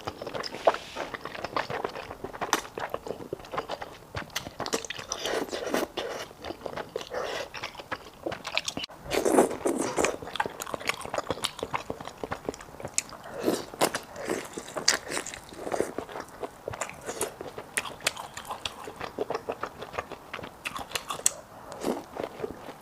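Close-miked eating of sticky malatang: continuous chewing and biting with wet mouth sounds and irregular crunches.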